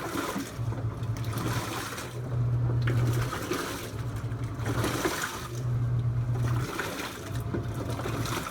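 Portable washing machine agitating a load in the wash cycle: the motor hums in pulses of about a second, four times, with short pauses between, while water and clothes slosh in the tub.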